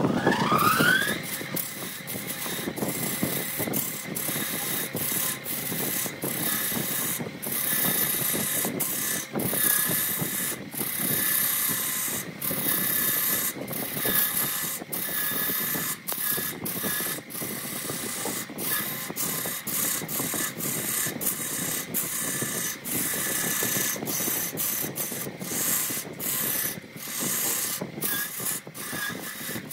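Wood lathe with a redwood blank spinning, a gouge cutting into it: a continuous scraping, rushing hiss of shavings over the lathe's faint whine. It opens with a brief rising whine and is broken by many short gaps where the cut lets up.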